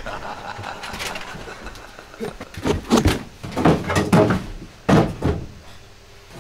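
A run of about seven loud, heavy thumps and knocks over roughly three seconds, starting a little over two seconds in, after softer rustling and knocking.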